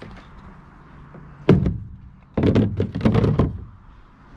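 Hollow plastic knocks and thuds as a plastic storage tub is set down into a plastic kayak's centre hatch: one sharp knock, then a flurry of thuds about a second later, over a faint low hum.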